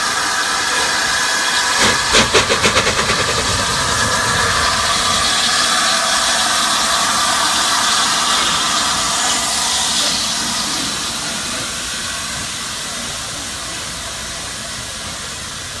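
Steam locomotive Flying Scotsman, an LNER A3 Pacific, pulling away with a loud steady hiss of steam. About two seconds in, a quick run of rapid exhaust beats sounds for about a second: the driving wheels slipping. The hiss then carries on and fades from about ten seconds in.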